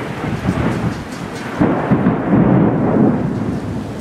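Thunder rumbling over steady heavy rain; the rumble swells about a second and a half in, is loudest in the middle, and eases off toward the end.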